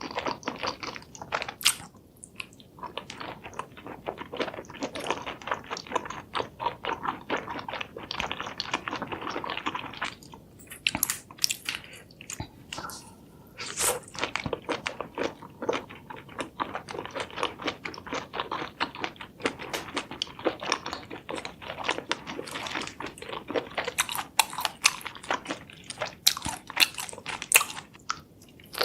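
Close-miked chewing and biting of crunchy food, with dense, irregular crisp crunches and brief pauses between mouthfuls.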